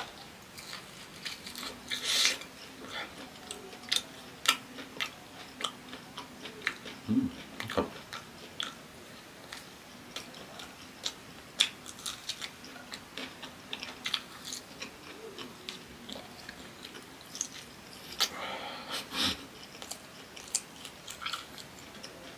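Close-up eating sounds: crunchy bites and chewing of fried cassava and raw green bird's-eye chili, with many wet mouth clicks.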